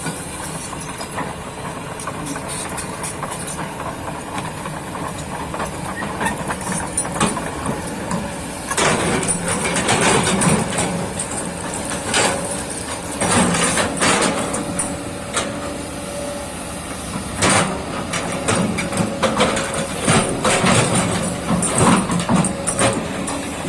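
A Kobelco excavator's diesel engine running steadily. From about a third of the way in there are repeated clanks and scrapes as the bucket digs soil.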